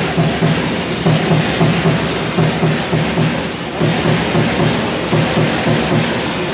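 Trumpf TruMatic 2020R CNC punch press punching sheet metal, a steady rapid run of strokes, several a second, as the sheet is stepped under the punch head.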